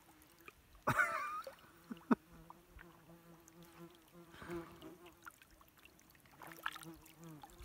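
An insect buzzing in a low, steady drone for several seconds. About a second in there is a brief higher-pitched sound, and shortly after it a sharp click.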